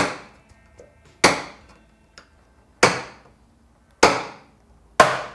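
A bench chisel struck five times with a mallet, about a second apart, each blow a sharp knock with a brief ringing tail, as it chops vertical stop cuts into the waste of a hand-cut groove in a wooden board.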